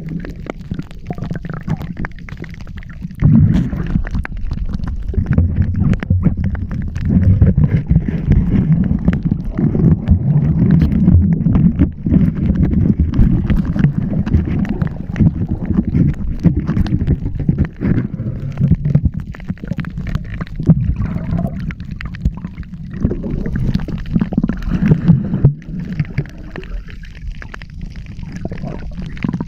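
Water sloshing and gurgling around a waterproof camera held by a swimming spearfisher, a muffled low rumble full of small knocks, quieter in the first few seconds and again near the end.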